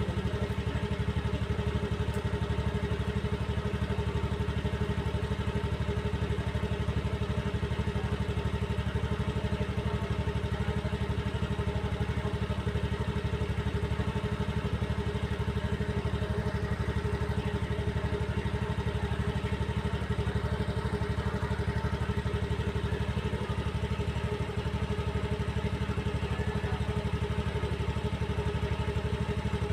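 A vehicle engine idling steadily: an even low rumble with a constant pitch and no revving.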